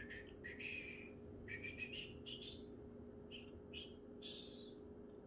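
Faint bird chirps: many short calls and brief rising whistles, over a steady low hum.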